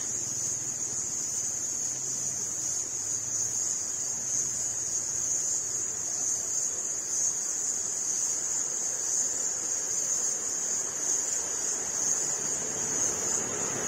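Steady, high-pitched drone of insects. Near the end a motorbike engine begins to be heard, growing louder as it approaches.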